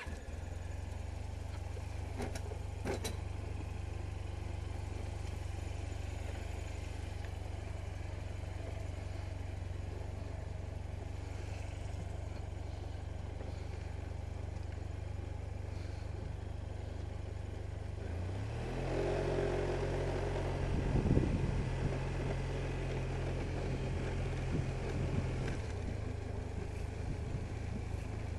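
Maxi-scooter engine running at a low, steady idle just after starting, with a couple of sharp clicks about two and three seconds in. About two-thirds of the way through, the engine note rises and gets louder under throttle for several seconds, then settles back down.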